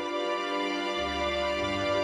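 Background music: sustained chords, with a new bass note coming in about a second in.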